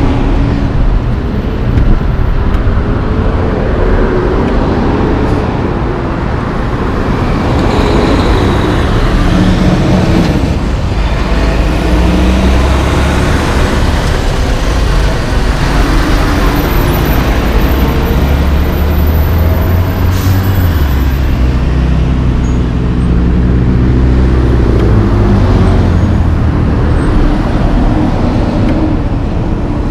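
Intersection traffic: a diesel semi-truck hauling a dry van trailer turns close past with its engine running loud and low, among passing cars and pickups. The engine pitch steps up and down as the rig pulls through.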